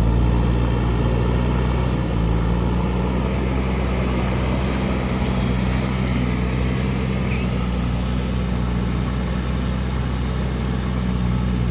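Diesel engine of a JCB earthmoving machine running steadily at a constant pitch.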